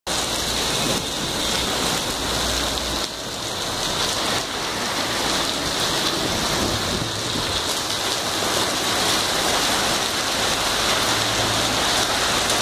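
Heavy rain pouring steadily onto the street and pavement in a downpour.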